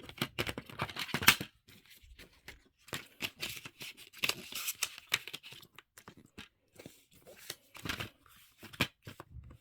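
A plastic DVD case and its discs being handled: scattered sharp clicks and short rustling and scraping noises.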